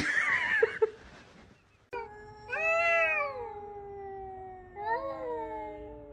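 A domestic cat yowling: a long drawn-out call that slowly falls in pitch, with two loud rising-and-falling meows, about two and a half and five seconds in. A short noisy sound comes before it in the first second.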